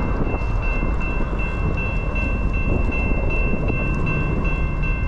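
Grade-crossing warning bell ringing steadily, about three strokes a second, over a loud, steady low rumble.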